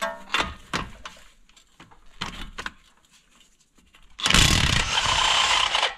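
Cordless DeWalt impact wrench on a rusty outer tie rod end nut: a few light clicks and taps, then about four seconds in a loud burst of rapid hammering lasting under two seconds that stops suddenly as the nut breaks loose.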